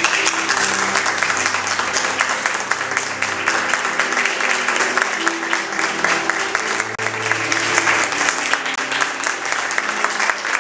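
Audience applauding, a dense steady clapping, with music playing underneath.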